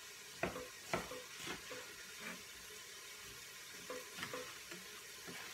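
Pampered Chef knife slicing raw beef chuck roast, its blade knocking on the cutting board in about seven short, irregular strokes. Under it a faint steady sizzle from onions and green pepper cooking in the pressure cooker.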